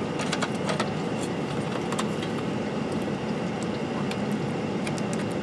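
Light, scattered clicks and taps of hands and a screwdriver working on the plastic case of an Amiga 1200, over a steady low background hum.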